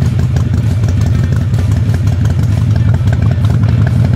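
Harley-Davidson Softail's 1340 cc Evolution V-twin idling steadily with an even, pulsing beat.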